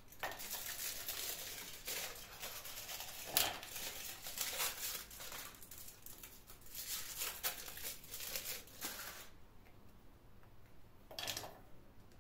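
Crinkly packaging being handled and torn, a quiet run of rustling with sharp crackles that dies down about nine seconds in, with one more short burst near the end.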